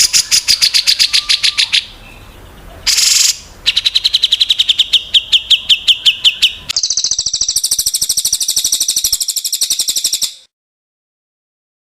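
Calls of small songbirds, edited together from separate recordings: a fast run of repeated chips, a short buzzy note, a run of clear repeated notes, then a very rapid high trill. The sound cuts off suddenly about ten seconds in.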